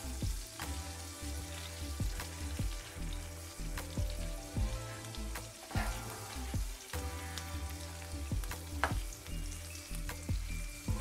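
Prawn heads sizzling in garlic-and-chilli olive oil in a frying pan, with frequent sharp clicks and scrapes of a slotted spoon against the pan as the heads are lifted out.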